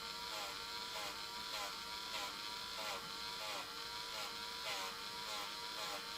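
Dremel rotary tool running at slow speed with a small wire brush, a steady whine whose pitch dips and recovers about one and a half times a second as the brush is pressed in quick passes over solder on brass photo-etch.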